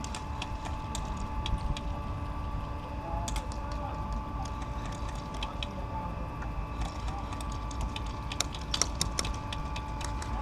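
Scattered sharp clicks and pops of airsoft guns firing and BBs striking, irregular and coming thicker in the last few seconds, over a steady hum.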